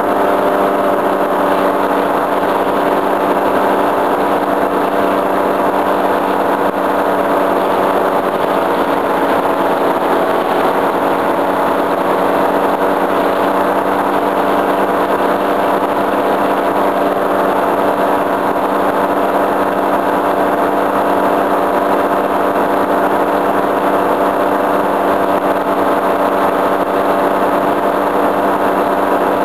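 Tandem paramotor trike's engine and propeller running steadily in flight, loud and at one unchanging pitch.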